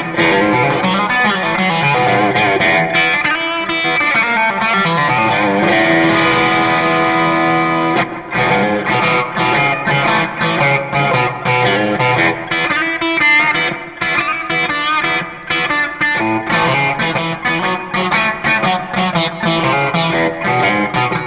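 Electric guitar, a 2016 Mexican-made Fender Stratocaster Deluxe Roadhouse on its bridge pickup, played solo. It plays a flowing run of notes, holds one long note about six seconds in, then moves to quicker picked notes.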